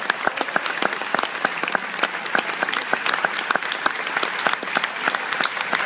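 Audience applauding, with dense, steady clapping.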